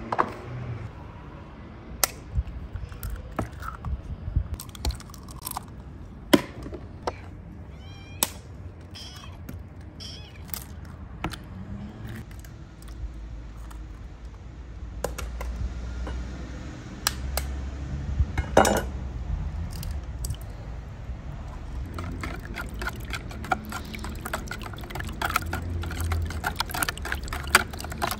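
Hen's eggs cracked one after another against the rim of a plastic bowl, sharp shell taps with the contents dropping wetly into the bowl. Toward the end a wire whisk starts beating the eggs, a fast run of clicks and splashing.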